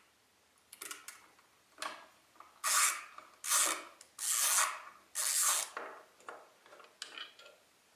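Screwdriver turning out the screws of an antique sewing machine's metal motor cover: a run of short rasping scrapes as the screws are turned, the four loudest coming about once a second in the middle, with light clicks between.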